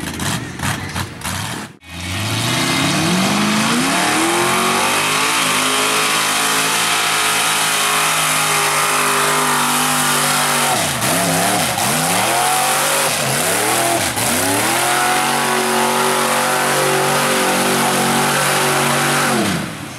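Engine of a lifted pickup on tractor tires revving hard as it churns through a mud pit. The revs climb about two seconds in and hold high, dip and pick back up twice around the middle, and fall away near the end.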